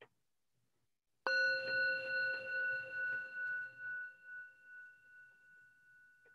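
Brass singing bowl struck once with a wooden striker about a second in, then ringing with several steady tones that fade slowly with a pulsing waver. The ring marks the end of a silent meditation, calling the listeners back.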